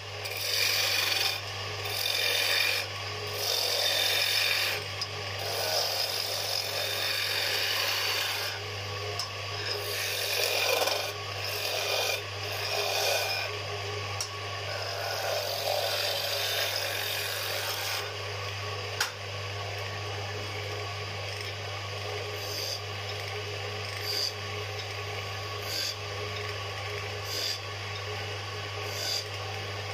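Wood lathe motor humming steadily while a cutting tool shaves a spinning wooden spindle, the cutting noise coming and going in passes. In the second half it changes to short separate cuts about once a second as rings are grooved into the wood.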